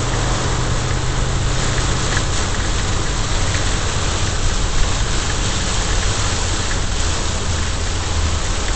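Heavy rain pelting a car's windshield and body, a steady hiss, with the car's engine humming low underneath.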